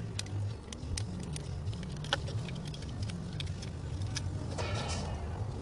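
Small sharp clicks and scratches of hand work on a truck wheel hub flange as old hub gasket material is cleaned off, over a steady low hum.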